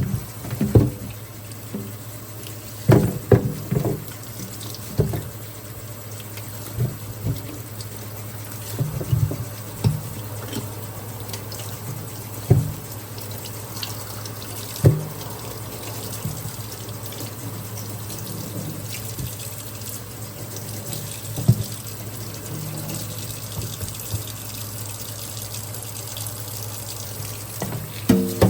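Kitchen tap running into a sink, with scattered knocks and clatters of things handled in it, over a steady low hum.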